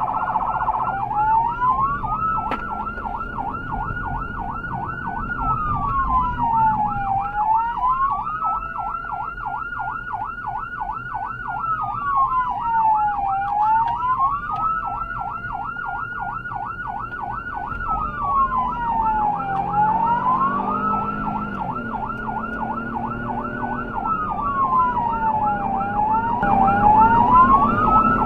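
Electronic emergency siren on a fire department response vehicle: a slow wail rising, holding and falling about every six seconds, with a fast yelp running underneath it the whole time. Low road and engine noise rises near the end.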